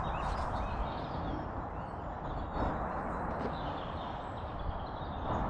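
Steady outdoor background noise, a rumbling hiss, with a few faint bird chirps.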